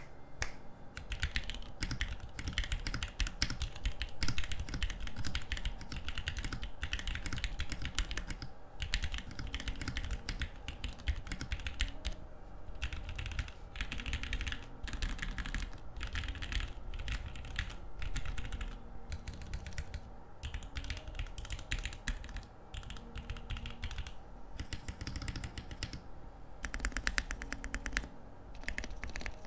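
Typing on a Bakeneko65 custom mechanical keyboard (aluminium case, O-ring mount, carbon-fibre plate, lubed Cherry MX Black linear switches): a steady run of clacky keystrokes, with a fast burst of rapid presses near the end. The switches are a little scratchy despite the lube.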